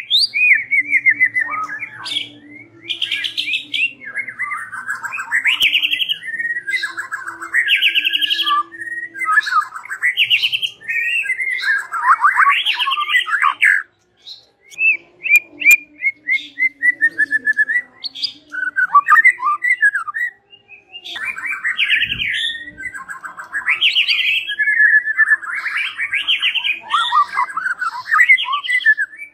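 White-rumped shama singing a long, varied song of fast trills and sliding whistled phrases, with short breaks about 14 seconds in and again around 21 seconds. It is the full late-afternoon song that keepers play as a lure (pemikat) to set other shamas answering.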